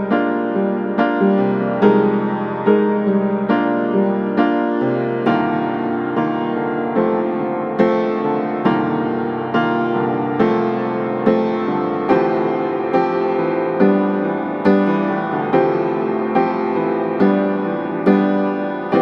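Background piano music: soft, evenly paced notes with a steady pulse.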